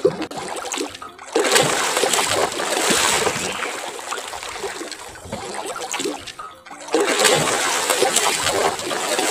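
A large stingray hooked on a longline thrashing at the water's surface, with heavy splashing. The splashing comes in two long spells: the first starts about a second and a half in, and the second starts after a short lull about seven seconds in.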